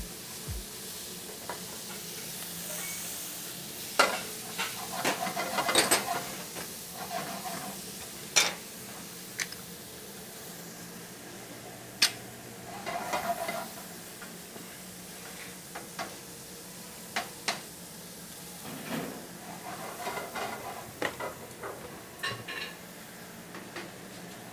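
Chunks of pork, sausage and bacon sizzling in a metal frying pan, stirred with a wooden spatula that scrapes and knocks against the pan in scattered sharp clicks over a steady hiss.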